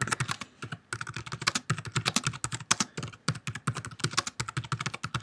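Typing on a computer keyboard: a quick, uneven run of keystrokes, several a second, with a brief pause a little under a second in.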